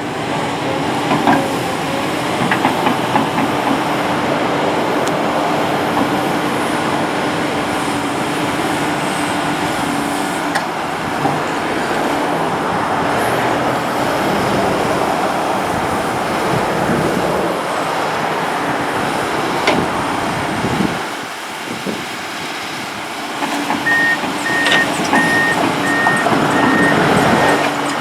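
Heavy diesel construction machinery running steadily, with scattered clanks. A backup alarm beeps repeatedly near the end.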